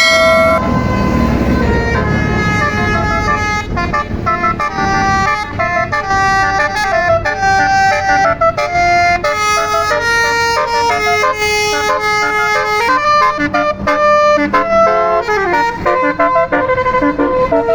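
A tour bus's Basuri telolet horn, an electric multi-tone bus horn, playing a melody of short held notes that change pitch every fraction of a second. An engine rumbles underneath for the first few seconds.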